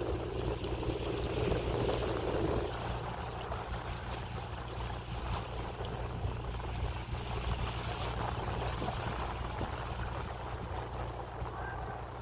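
A sailing yacht's engine drones steadily while the boat motors over calm water, with water washing past and wind on the microphone.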